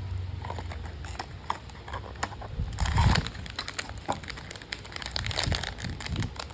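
Blind-box packaging being handled and opened by hand: irregular crinkling and crackling of the wrapper, with a louder rustle and thump about three seconds in.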